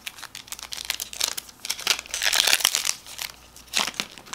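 Foil Pokémon booster pack wrapper crinkling and crackling as it is handled and torn open, with a longer, louder rip about halfway through.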